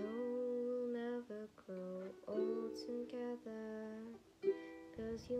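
Background music: a song with a singing voice over plucked-string accompaniment.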